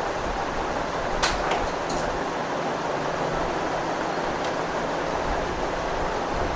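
Steady whooshing air noise, like a fan or air blower running, with a few light clicks between one and two seconds in.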